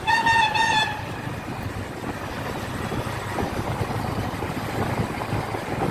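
A vehicle horn sounds as one steady tone for just under a second at the start. Then comes the steady engine, road and wind noise of a vehicle moving through traffic.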